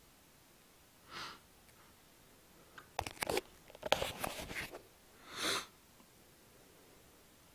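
Baby hiccupping: a short, sharp breathy hic about a second in and another around five and a half seconds, with a cluster of clicks and rustling between them.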